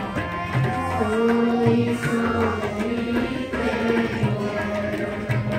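Sikh kirtan: a group of children singing a shabad to harmonium and tabla, the held notes over a steady pattern of tabla strokes.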